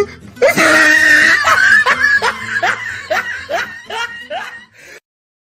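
A person laughing: a loud burst of laughter, then a run of short rhythmic laughs about three a second that taper off and stop abruptly.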